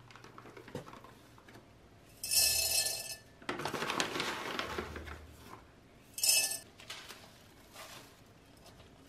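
Houseplants being repotted by hand: terracotta pots clinking against a metal tub, with rustling and scraping of potting soil. There are two sharper, brighter clatters, about two and six seconds in.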